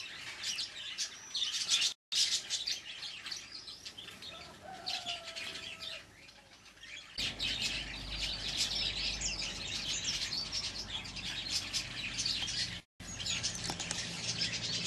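Wild songbirds chirping and twittering, many quick high notes overlapping throughout. A short low call sounds about five seconds in. From about seven seconds a low rumble lies under the birdsong. The sound cuts out for a moment twice.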